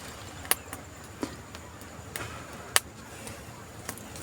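Campfire crackling: a low steady hiss with a handful of sharp, separate pops and cracks from burning wood, the loudest a little under three seconds in.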